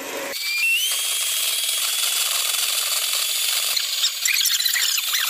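Electric hand mixer switching on about a third of a second in, its motor whine stepping up in pitch as it comes up to speed, then running steadily as its beaters whip egg yolks and sugar in a stainless steel bowl. The sound turns rougher and less even near the end.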